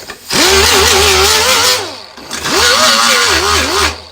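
Small grinder run twice on a car's quarter panel, grinding paint off to bare metal. Each run spins up with a quick rising whine, then the pitch wavers as the disc bites, with loud hiss.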